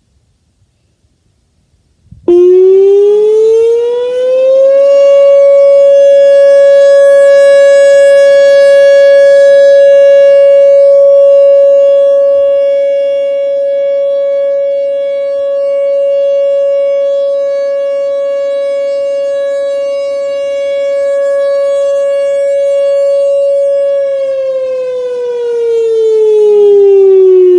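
Whelen WPS 4004 electronic tornado siren sounding a test: about two seconds in it starts up, rising in pitch over a couple of seconds to a steady tone held for about twenty seconds, then sliding down in pitch near the end.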